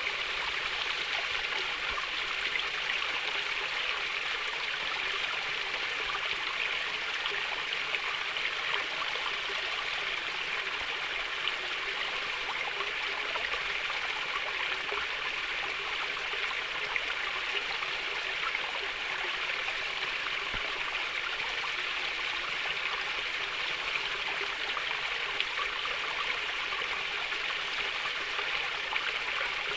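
Water flowing and trickling gently over stones in a small stream, a steady babbling with fine splashy texture.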